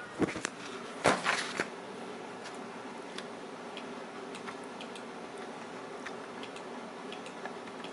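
Steady hum of running computer equipment with faint, irregular small clicks, typical of mouse clicks and disk access on a Macintosh Classic. Two brief, louder rustling noises come in the first second and a half.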